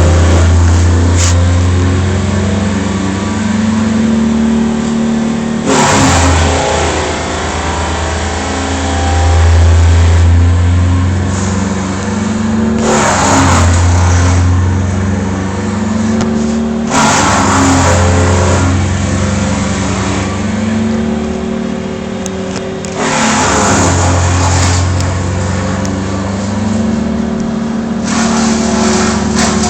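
A large engine running steadily, with a harsh burst of noise about every four to six seconds as the machine takes a load, the engine note sagging under each one.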